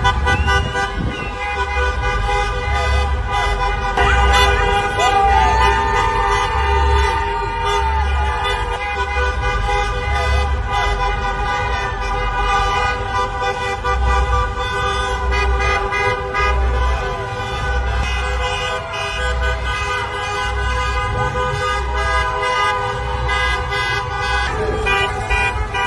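Many car horns honking at once in celebration: a dense, overlapping, unbroken chorus of steady horn tones from a street full of cars. A low pulse recurs every second or two underneath.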